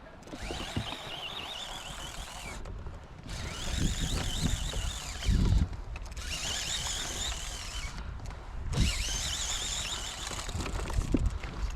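Fishing reel whining as line runs through it during a fight with a hooked bass. The whine wavers up and down in pitch and comes in several stretches with brief breaks, over some low knocks and splashes.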